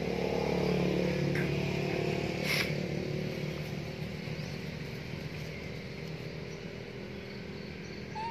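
Steady engine hum of a passing motor vehicle, loudest at the start and slowly fading, with a brief high chirp a couple of seconds in.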